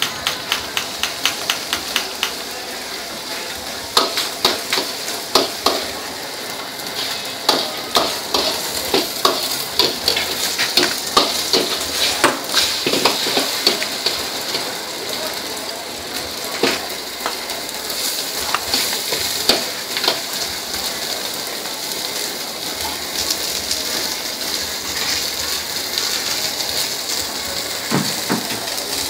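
Egg frying in hot oil in a steel wok, sizzling steadily, while a metal ladle taps and scrapes against the pan. The taps come quickly in the first couple of seconds and more scattered through the middle, then the sizzle carries on alone.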